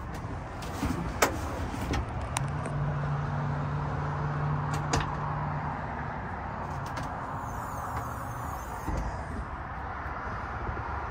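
Steady wash of road traffic noise with a low engine hum passing through for a few seconds, and a few sharp clicks and knocks.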